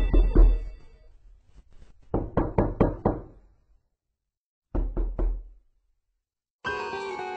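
Knocking in short runs: a couple of knocks at the start, five quick knocks about two seconds in and three more about five seconds in, with silence between. Music comes back in near the end.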